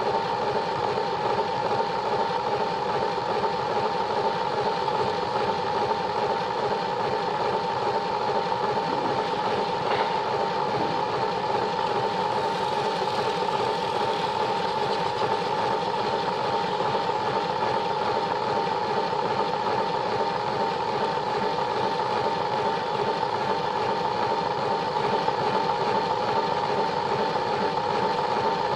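Plarail toy train's small battery-powered electric motor and gears whirring steadily as the train runs along plastic track.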